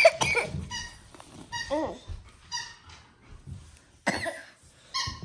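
A person coughing a few times, with short high-pitched squeaks between the coughs.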